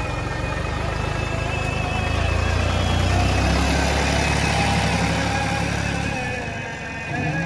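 Massey Ferguson 3060 tractor engine running under a front loader. It grows louder about two seconds in, holds, then eases back near the end.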